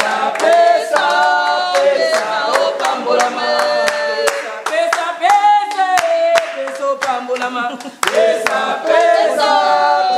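A group of voices singing a worship song together without instruments, with hands clapping along in a steady beat.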